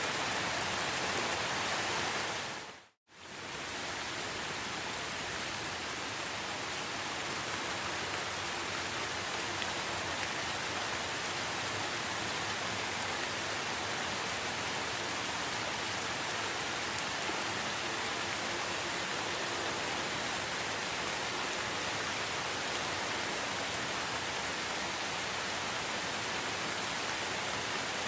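Steady rain falling, an even hiss with no birds or insects standing out. About three seconds in it fades out to silence for a moment and comes straight back.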